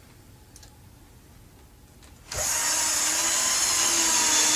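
Power drill driving a heavy screw through the range hood backer board into the wall, starting suddenly about halfway in and running at a steady speed.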